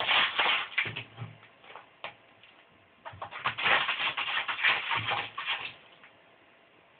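A kitten's paws scratching and raking granular cat litter in a plastic toilet-training tray: quick gritty scrapes, a short bout at the start and a longer one from about three seconds to nearly six seconds.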